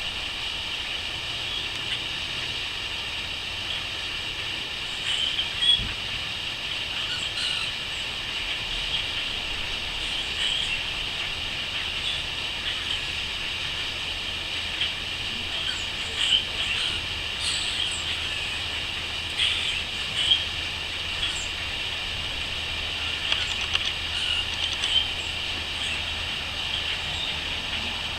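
Crickets chirping in a steady chorus, with short bird calls now and then.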